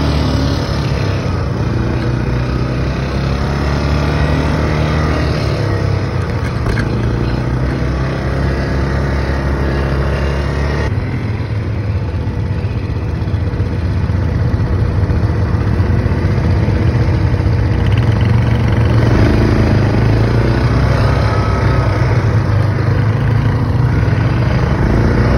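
ATV engines running and revving, rising and falling in pitch, with an abrupt change in the sound about eleven seconds in.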